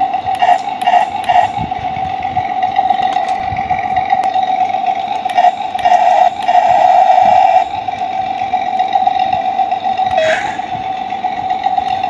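Battery-powered remote-control toy excavator running: a steady high-pitched whine throughout, with a few short clicks, growing louder for about a second and a half around the middle.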